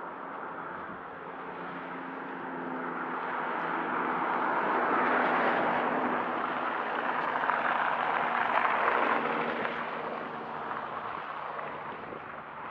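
A road vehicle passing on the adjacent road: tyre noise and faint engine hum swell over several seconds, peak, and die away as it goes by.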